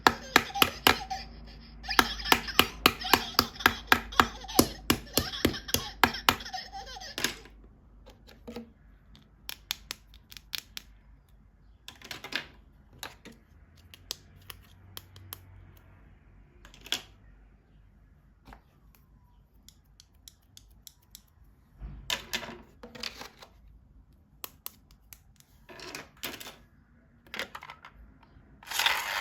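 Plastic toys and packaging handled during an unboxing: a fast run of crisp clicks and crinkling for about the first seven seconds, then scattered single clicks and taps with short pauses between them.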